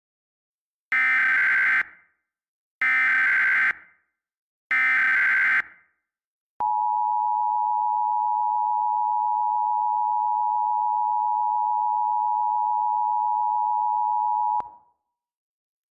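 Three Emergency Alert System SAME header data bursts, each a harsh digital screech lasting about a second, followed by the EAS two-tone attention signal (853 and 960 Hz) held steady for about eight seconds and then cut off. These are the tones that open an EAS broadcast, here an emergency action termination.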